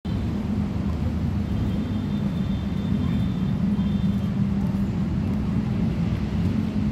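Steady low outdoor rumble, with a faint thin high tone from about one and a half to four and a half seconds in.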